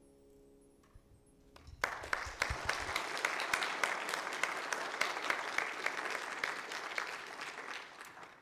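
The accompaniment's last held chord fades out, then a congregation applauds, starting about two seconds in and dying away near the end.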